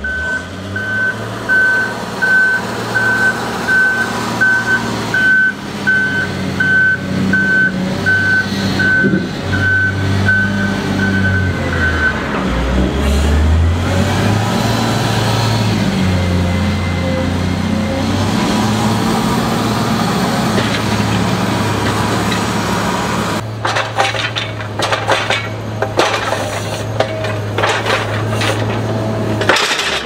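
Volvo L70F wheel loader's diesel engine running under load, its pitch rising and falling as it works. For the first twelve seconds its reversing alarm beeps steadily, about once every three-quarters of a second; near the end a rapid run of clattering knocks sounds over the engine.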